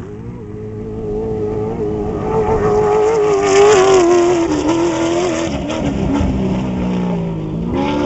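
Off-road race truck's engine running hard as the truck approaches and passes at speed on a dirt course. It grows louder to a peak about halfway through, then drops in pitch as it goes by, and near the end the engine note climbs again.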